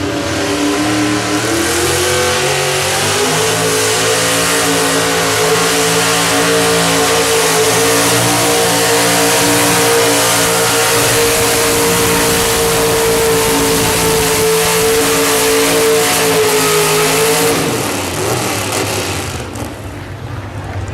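500–600 hp super stock two-wheel-drive GMC truck's engine at full throttle, pulling a sled under heavy load. The revs climb over the first couple of seconds, hold high and steady for about fifteen seconds, then drop away about three seconds before the end as the throttle comes off.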